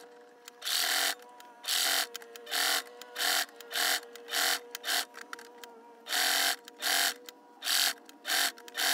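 Singer electric sewing machine stitching in about a dozen short spurts, each under half a second, as the foot pedal is pressed and let off to guide a fabric ear seam.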